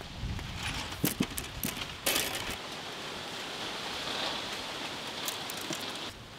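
A few sharp clicks of bamboo skewers and raw potatoes being handled during skewering, over a steady hiss.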